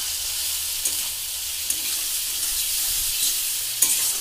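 Tomatoes and onions sizzling in hot mustard oil in a wok, stirred with a metal spatula that taps and scrapes the pan a few times, the sharpest tap near the end.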